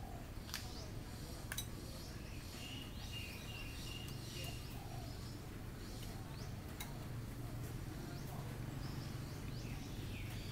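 Outdoor birdsong: small birds chirping, with a quick run of high, even chirps about three seconds in, a few sharp clicks, and a low steady hum underneath.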